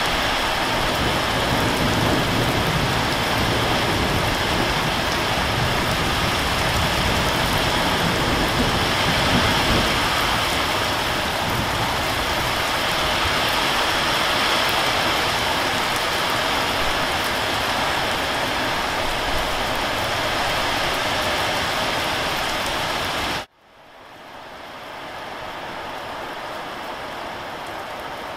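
Steady rain pouring onto a corrugated sheet roof and leafy plants, a dense even hiss. About 23 seconds in it cuts off abruptly and a quieter steady hiss follows.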